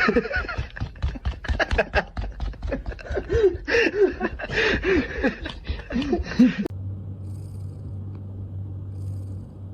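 A pet animal making many short calls in quick succession, each rising and falling in pitch, with clicks among them. About two-thirds of the way through they cut off abruptly to a low steady hum.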